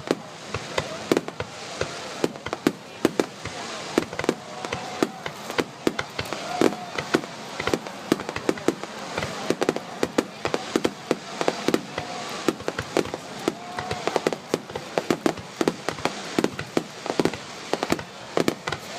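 Aerial fireworks display: a rapid barrage of shell bursts and cracks, several sharp bangs a second with no let-up, over a steady background haze.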